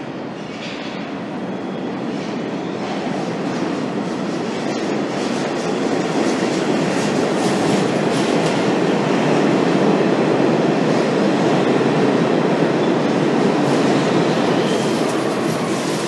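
NYC subway train rolling into an underground station and past along the platform: a rumble of steel wheels on rail with a clickety-clack over the joints, growing louder over the first ten seconds and staying loud as the cars go by.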